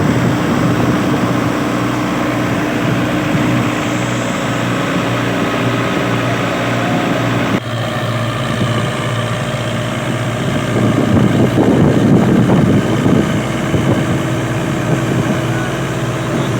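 Wheat thresher machine running with a steady mechanical drone, growing louder and rougher for a couple of seconds in the second half.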